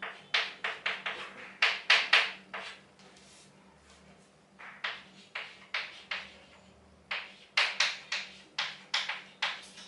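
Chalk writing on a chalkboard: a quick run of short taps and scratches as letters are written, in two bursts with a pause of about two seconds between them.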